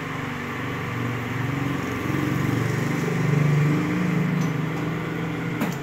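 Metal lathe running with a motorcycle fork tube turning in its chuck: a steady motor and gear hum of wavering low tones that swells in the middle. Near the end one tone drops in pitch.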